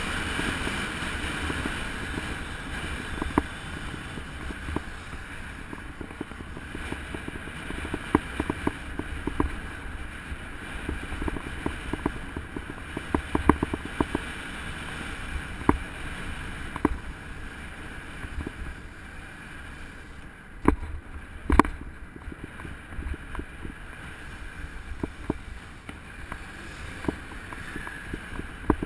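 Wind rushing over a moving camera's microphone with road rumble, broken by scattered clicks and knocks from bumps in the road. Two louder knocks come a little past the middle.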